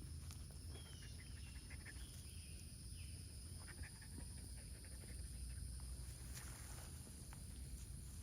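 Faint outdoor farm ambience: a few short, falling bird chirps in the first few seconds over a steady high-pitched hum, a low rumble and scattered small ticks.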